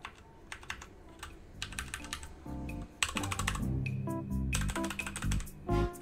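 Keys of a Royal Kludge RK61 60% mechanical keyboard being pressed in short clusters of clicks. Background music with a bass line comes in about two and a half seconds in.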